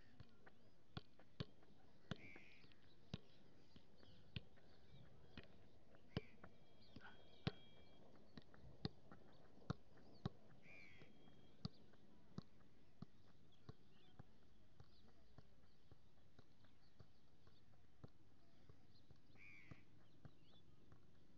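A football being kicked and juggled: irregular sharp taps of foot on ball, about one a second, thinning out near the end. A bird calls briefly a few times in between.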